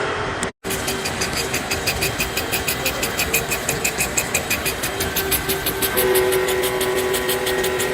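A manufacturing machine running with a steady hum and a rapid rhythmic clatter of about five beats a second, after a brief dropout about half a second in. Near the end a second steady tone joins and it gets slightly louder.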